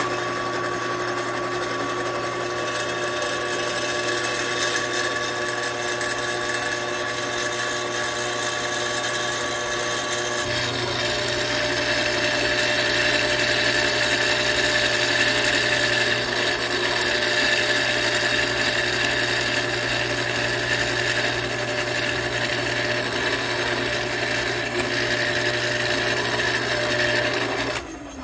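Benchtop drill press switched on and running steadily as its bit drills metal through a pinning jig on a rifle's front sight. The sound shifts about a third of the way in, and the motor cuts off just before the end.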